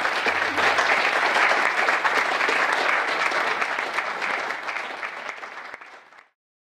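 Audience applauding steadily with dense clapping. It fades over the last couple of seconds and cuts off shortly before the end.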